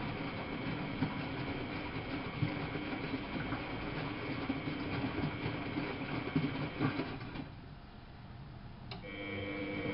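Miele Novotronic W830 washing machine running, a steady mechanical hum with occasional knocks. Near the end it goes quiet for about a second and a half, then starts again abruptly with a steadier whine.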